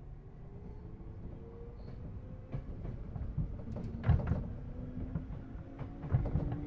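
Inside a JR East 211 series 3000 electric train car, the hum of the DC traction motors and gears rises steadily in pitch as the train gathers speed. From about two and a half seconds in, the wheels knock over rail joints, loudest about four seconds in and again near the end.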